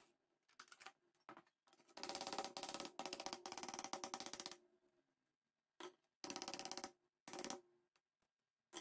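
Electric hand mixer beating cake batter at medium speed, a fast rattling whir heard in several short bursts: a long one of about two and a half seconds, then three or four brief ones, with silence in between.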